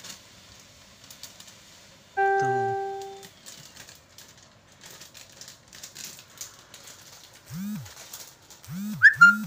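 Edited-in sound effects over a cat eating: a single loud piano-like note about two seconds in that fades over a second, and near the end three short low sounds that bend up and down in pitch with a brief squeaky chirp. Between them, faint clicking of the cat crunching dry kibble.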